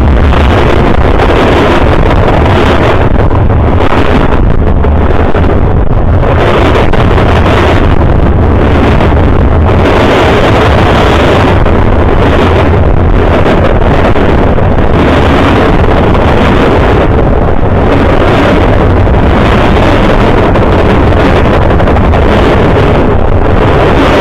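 Freight train cars passing at close range: a loud, steady rumble and rush of wheels on rail, with wind from the passing cars buffeting the microphone.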